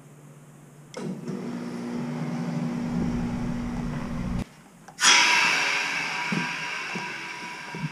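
Forced-air shop heater's blower fan starting up about a second in with a steady low hum, as the thermostat calls for heat. It cuts off abruptly, and half a second later a louder rushing noise starts suddenly and slowly fades.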